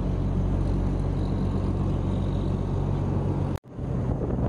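Fishing boat's engine running steadily under way, with water rushing past the hull. It drops out for a split second about three and a half seconds in, then the engine and the wash of the wake carry on, with some wind on the microphone.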